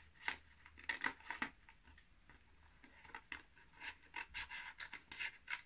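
Scissors cutting through a sheet of paper: faint, short snips at an irregular pace, with the paper crinkling between them.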